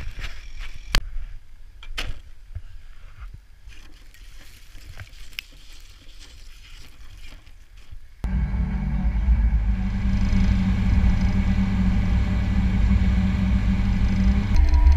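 A few scattered knocks and clicks, then, about eight seconds in, a PistenBully 400 Winch snowcat's diesel engine comes in suddenly, running loud and steady with a low hum.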